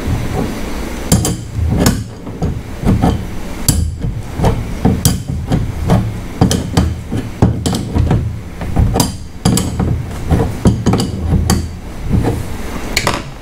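Steering-cable tube nut being worked tight onto an outboard's tilt tube with large slip-joint pliers: a quick, irregular run of sharp metallic clacks, about two a second, starting about a second in, as the pliers grip, turn and re-grip the nut.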